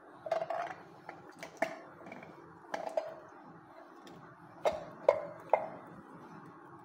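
A metal can clinking and knocking against a ceramic bowl as canned sweet corn is shaken out into it. There are several sharp clinks with a short ring, irregularly spaced, the loudest about two-thirds of the way through.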